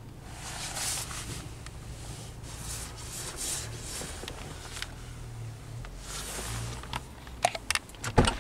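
Low steady hum inside a parked van, with soft swells of hiss from traffic on the wet road. Near the end come a few sharp clicks and a knock as the passenger door is unlatched and opened.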